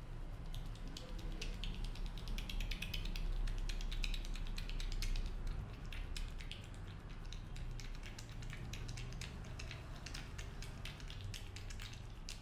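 Rapid, dense crackling clicks of hair being rubbed and twisted between the barber's fingers during a head massage ('hair cracking'). The clicks are loudest a few seconds in and then ease off a little.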